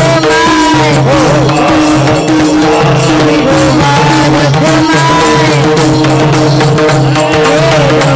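Devotional kirtan music: a gliding melody line over a steady held drone, with hand percussion and a constant clatter of strokes.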